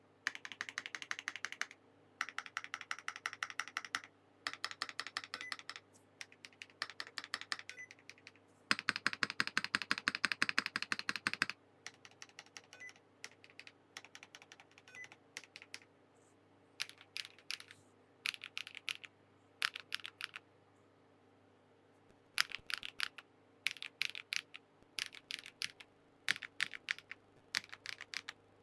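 Typing on a Transition Lite TKL mechanical keyboard with HMX Raw switches, an aluminium plate, full foam and Keykobo keycaps: fast runs of keystrokes in bursts with short pauses. The densest, loudest run comes about a third of the way in, and the later bursts are sparser.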